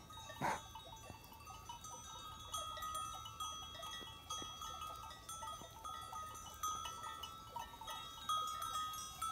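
Faint sounds of a grazing sheep flock, over a steady high-pitched ringing tone, with a short louder sound about half a second in.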